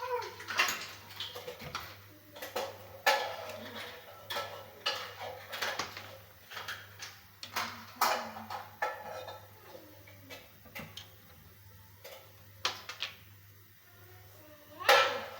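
Irregular clinks and knocks of kitchen dishes and utensils being handled.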